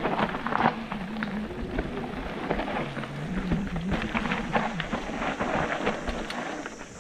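Mountain bike clattering down a rough dirt singletrack: tyres rumbling over dirt and roots, with many sharp knocks and rattles from the bike as it hits bumps.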